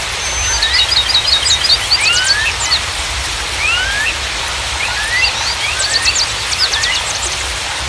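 Steady rushing water noise with small songbirds chirping over it: quick rising whistled notes and runs of rapid falling trills, coming in two busy bursts, first about half a second in and again around the fifth to seventh second.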